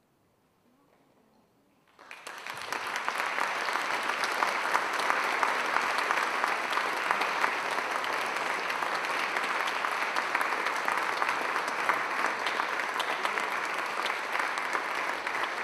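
Near silence for about two seconds, then a concert audience starts applauding; the clapping builds quickly and carries on steadily.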